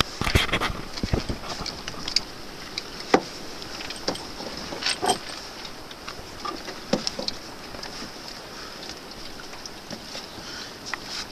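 Scuba gear being handled on a wooden boat: irregular knocks, clicks and rubbing as a diver works his harness, hoses and straps, with a few heavier thumps near the start over a steady hiss.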